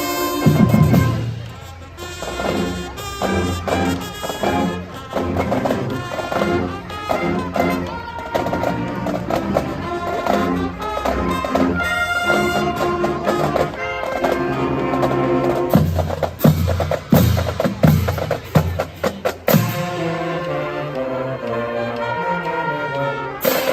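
Marching band playing: snare and bass drums and other percussion under brass.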